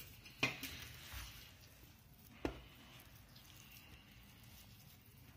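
Boiled, peeled potatoes being broken up and squashed by hand on a steel plate: soft squishing, with two light knocks, about half a second in and again near the middle.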